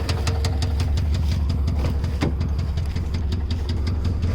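Subaru EJ206 flat-four engine idling with a regular knock from the cylinders, about six knocks a second, fading a little midway and growing stronger near the end. The engine has failed after losing power: it starts but knocks, and the owner thinks the knock is in the fourth cylinder.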